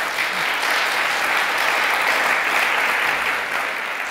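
Audience applauding, a steady dense clapping that eases off slightly near the end.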